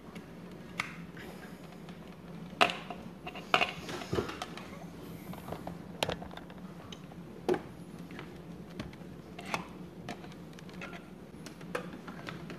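Irregular clicks, knocks and light clatter of cables and small objects being handled and set down on a wooden desk, over a steady low hum.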